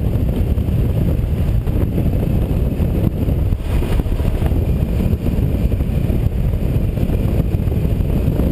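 KTM 990 motorcycle riding at a steady cruising speed, its engine drone mixed with wind rushing over the helmet-mounted microphone in a loud, even low rumble.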